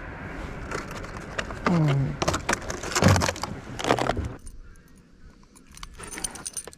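Metallic jingling and clicking of a spinner lure's blade and treble hook as it is worked free from a pike's mouth, with knocks and handling noise. It goes quieter about halfway through, leaving light metal chinks and a faint high ringing near the end.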